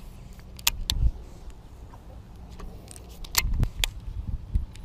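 Handling of a baitcasting rod and reel: a few sharp metallic clicks, two about a second in and three more past the three-second mark, over low rumbling thumps from movement.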